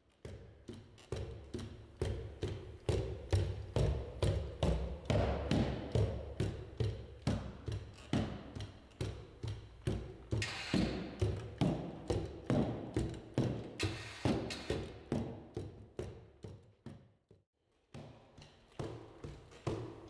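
Cassie bipedal robot walking and stepping, its feet tapping and thudding on rubber floor mats about three times a second in a steady run of footfalls. The footfalls stop briefly near the end, then start again.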